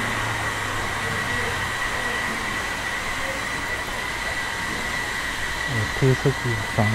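Steady street background noise with a thin constant high tone through it. Near the end a person's voice makes a few short sounds.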